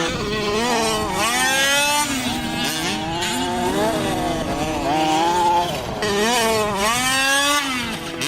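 Radio-controlled car motors revving, their pitch climbing and dropping again several times over.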